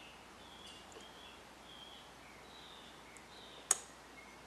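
A single sharp metallic click about three and a half seconds in, from small pliers working the dial cord on the radio's tuning drum. Faint short chirps come and go in the background.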